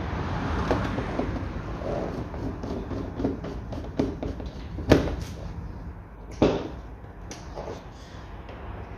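Small clicks and scrapes of a screwdriver and metal parts being handled as Phillips screws are driven into a car door's window regulator, with two sharper knocks about five and six and a half seconds in.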